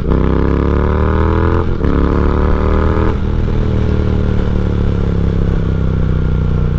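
Triumph Speed Twin's 1200 cc parallel twin through a decatted X-pipe and slip-on exhausts, accelerating hard: the revs climb, drop at a gear change about two seconds in, and climb again. About three seconds in the throttle eases and the engine settles into a steady cruise with the pitch sinking slowly.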